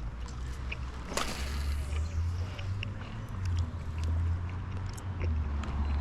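A single sharp swish about a second in, falling away in pitch, followed by a steady low rumble with scattered faint ticks.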